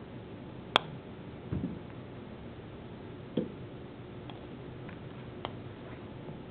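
An Odyssey Black Series Tour Design ix #2 putter striking a golf ball: one sharp click a little under a second in. A few duller knocks and faint ticks follow.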